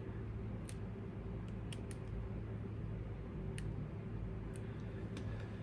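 A few faint, sharp clicks of a hand tool and small parts being handled while a screw on an RC crawler's transmission is snugged down, over a steady low hum.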